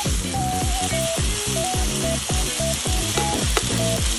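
Meat and mushroom strips sizzling steadily as they fry in a pan, turned now and then with a utensil. Background music with a steady beat and a light melody runs underneath.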